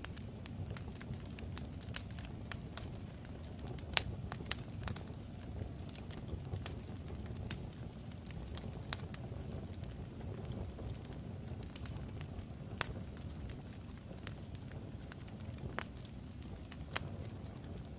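Crackling fire: a steady low rumble with irregular sharp pops and crackles, the loudest pop about four seconds in.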